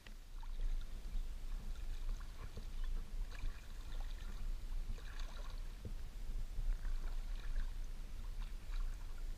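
A kayak being paddled on a calm river: a paddle dipping and water dripping and trickling in small scattered splashes, over a steady low rumble.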